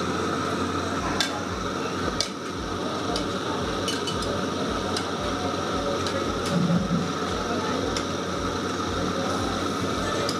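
Clatter at a street-food stall: scattered clinks and knocks of metal utensils and dishes over a steady background hubbub, with one louder knock about six and a half seconds in.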